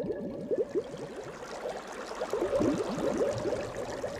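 Water trickling and gurgling: a steady run of many quick little splashes.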